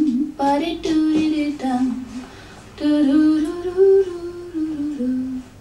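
A woman singing a slow tune with long held notes, in two phrases with a short break about halfway through.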